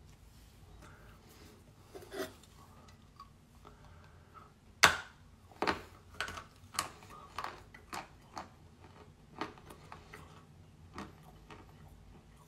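A bite into a chunk of Volyn clay chalk streaked with iron: one sharp crunch about five seconds in, the loudest sound here, then a string of crunches from chewing, about one or two a second, fading out near the end.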